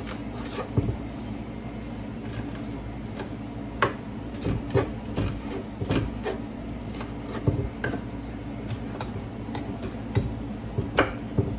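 Kitchen knife chopping peppers on a wooden cutting board: irregular sharp knocks of the blade hitting the board, some louder than others, over a steady low hum.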